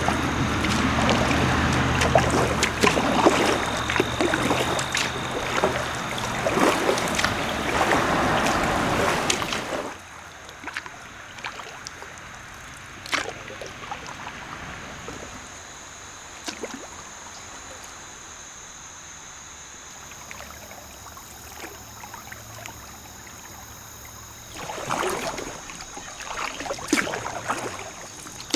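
Kayak paddling on a river: paddle blades splashing and water rushing along the hull, loud for the first ten seconds, then a quiet glide with a few drips, and splashing strokes again near the end.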